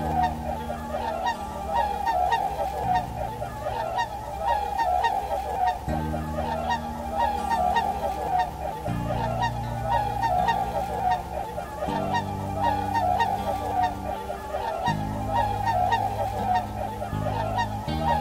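A large flock of swans calling constantly, many short honking calls overlapping without a break. Soft background music of slow, held chords plays underneath.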